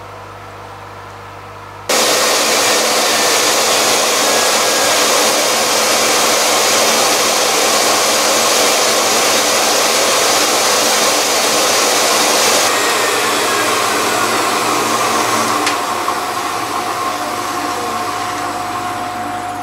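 Dumore 44 tool post grinder, with a shop vacuum drawing off the grit, grinding the lathe's spindle nose: a loud, steady high-speed whine and rushing hiss that cuts in suddenly about two seconds in. The sound eases a little over the last few seconds, and a steady tone rises out of it near the end.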